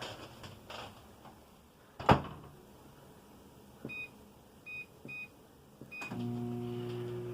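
Whirlpool 1800-watt microwave oven: a loud clack of the door shutting, four short keypad beeps, then the oven starts up about six seconds in and runs with a steady electrical hum and fan noise.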